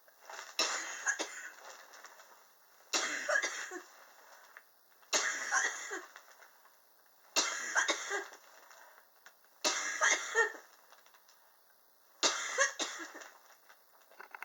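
A person coughing over and over: six coughing bouts about two seconds apart, each a cough or two lasting about a second. It is a prolonged cough that the cougher says is triggered by extreme temperatures.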